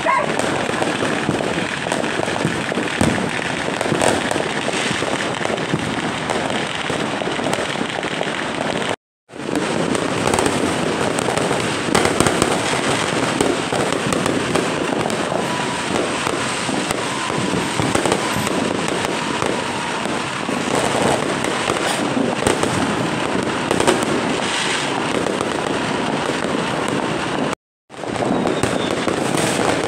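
Fireworks going off without pause: a dense, continuous crackle of many bangs and pops. The sound drops out twice for an instant.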